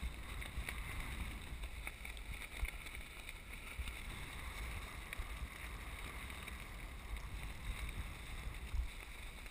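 Steady wind rumble on the microphone over choppy open water.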